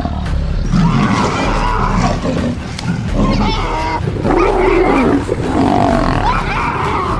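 Lions growling and snarling continuously in a struggle with their prey, rough calls rising and falling in pitch.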